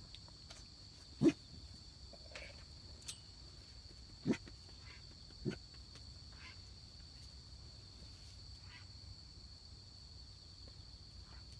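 Steady high-pitched chorus of night insects, with three short sharp knocks: about a second in, about four seconds in, and about five and a half seconds in.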